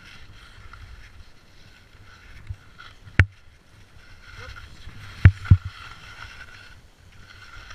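Skis sideslipping on hard-packed snow, their edges scraping steadily. Sharp knocks cut through it: one about three seconds in and two close together a little after five seconds.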